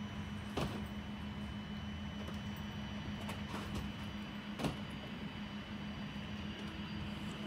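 Distant Cessna Citation Ultra business jet on its landing rollout: a steady hum from its twin Pratt & Whitney JT15D turbofans with a faint high whine. Two sharp clicks, about half a second in and just under five seconds in.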